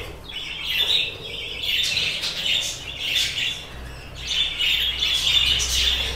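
A flock of budgerigars chattering and chirping together, the chatter swelling and easing in waves.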